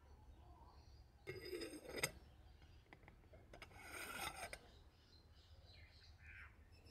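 Damascus steel teapot lid set down onto a stoneware teapot's rim: a short scrape ending in a sharp click about two seconds in, then a second, longer scrape of metal on ceramic as the lid is seated.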